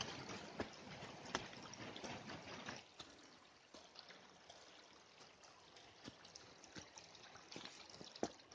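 Faint trickle of small rivulets running down the ruts of a muddy forest track, with scattered footsteps on wet ground and leaves. The water sound is stronger for the first three seconds, then drops lower.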